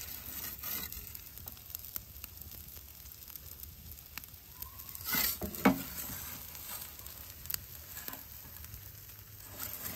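Wood fire hissing and crackling inside an Ooni portable wood-fired pizza oven as a pizza cooks on its hot stone. A brief louder knock comes about five seconds in.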